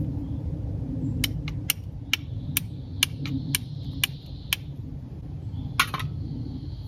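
Flint and steel: a C-shaped fire steel struck against a flint to throw sparks for lighting a fire, about ten sharp clicks roughly two a second, then a quick cluster of strikes near the end.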